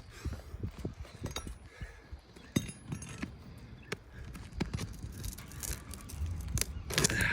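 Irregular light clicks, taps and scrapes from hands and tools working at a stuck asphalt roof shingle, over a low rumble.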